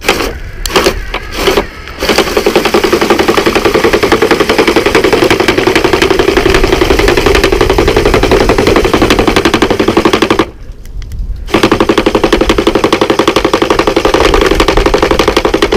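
iRobot Looj 330 gutter-cleaning robot running in a house gutter, its motor-driven auger turning and giving a loud, fast rattle. A few short bursts come first, then a steady rattle that stops for about a second past the middle and starts again.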